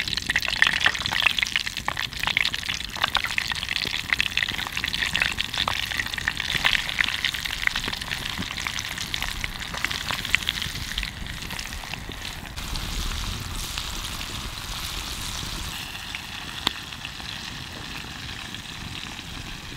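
Bite-sized walleye pieces coated in corn flour deep frying in a pot of hot lard: a dense sizzle with many small pops, easing off somewhat in the second half.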